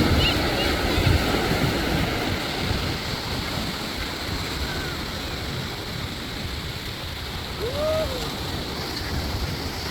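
Ocean surf breaking and washing up the beach, with wind buffeting the microphone, louder in the first couple of seconds. A short rising-and-falling cry sounds once, about eight seconds in.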